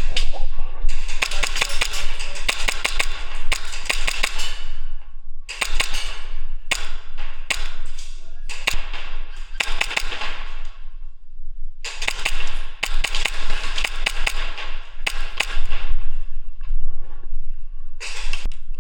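Airsoft guns firing on full auto in several long bursts of rapid, sharp clicking, each lasting a few seconds, with short gaps between them.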